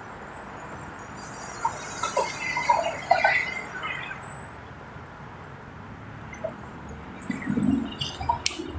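Scattered short bird chirps over a faint outdoor hiss, with a few sharp clicks near the end.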